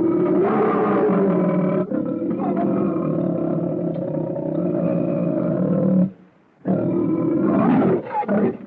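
Prehistoric big-cat roar sound effect: one long, drawn-out roar lasting about six seconds, shifting in tone about two seconds in, then after a short pause a second, shorter roar and a few brief calls near the end.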